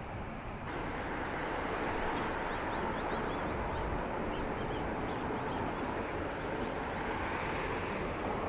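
Steady outdoor noise with no clear single source, and a run of short, high bird chirps in the middle.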